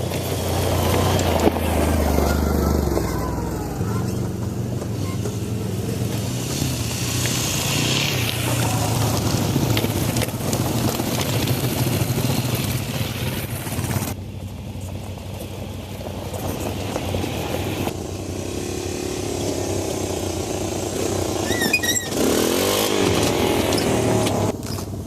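Yamaha WR250R dual-sport motorcycle's single-cylinder four-stroke engine running under way. The sound breaks off and changes abruptly a few times, as separate clips cut together.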